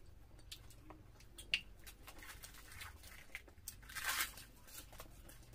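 Eating by hand: puffed, deep-fried luchi being torn with the fingers and bitten, giving soft tearing and crinkling with small wet clicks of mouths and fingers. About four seconds in there is one louder crackle.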